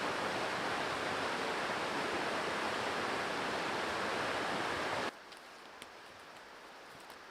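Steady rush of running creek water, cutting off suddenly about five seconds in and leaving quiet forest ambience.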